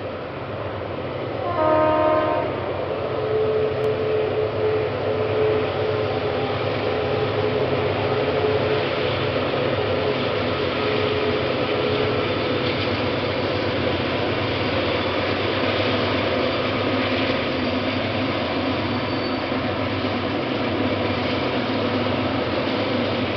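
Approaching freight train led by a GE BB36-7 diesel-electric locomotive: a brief multi-tone horn blast about two seconds in, then the steady running of the locomotive's diesel engine and the rumble of loaded freight wagons rolling on the rails.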